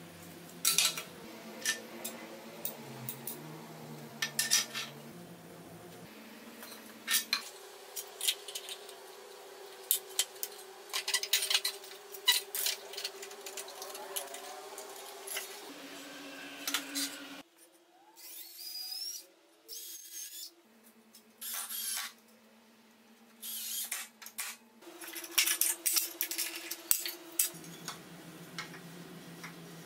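Homemade steel clamps and steel parts clicking, knocking and clattering on a steel workbench as the clamps are handled, cranked and set against wood, in scattered sharp knocks.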